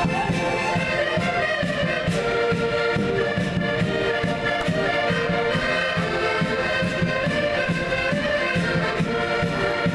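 A group of concertinas (button accordions) playing a tune together, held chords over a steady beat.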